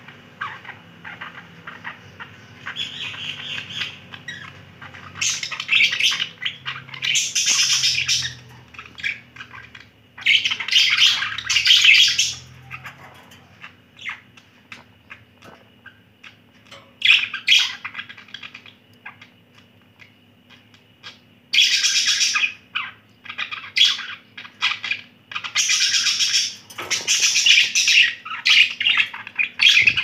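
Budgerigars warbling and chattering in bursts of rapid, scratchy high-pitched chirps and squawks, each run lasting a few seconds with short quieter spells between.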